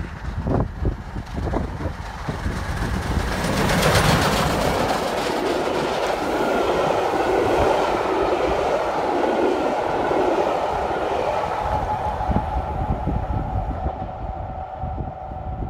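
Steam locomotive 35018 British India Line, a Southern Railway Merchant Navy class Pacific, passing at speed, loudest about four seconds in, with wind buffeting the microphone at first. Its coaches follow, wheels clattering over the rail joints, and the sound fades as the train draws away.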